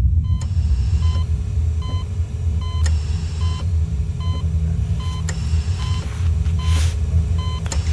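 Operating-room patient monitor beeping its regular pulse tone, a short high beep a little more than once a second, over a loud steady low hum. A brief soft hiss comes near the end.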